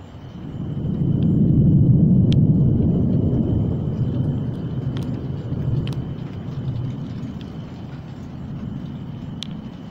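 Thunder rolling: a low rumble that swells about a second in, peaks soon after, then slowly dies away.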